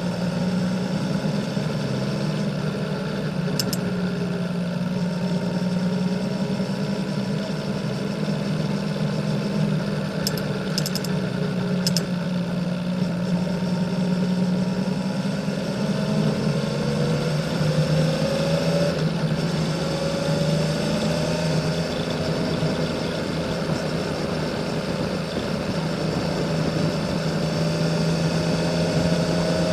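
Honda CBX 1000's air-cooled inline six-cylinder engine running through a 6-into-2 Kerker exhaust as the motorcycle climbs at a smooth, steady pace. The engine note rises slowly past the middle, drops briefly, then climbs again toward the end.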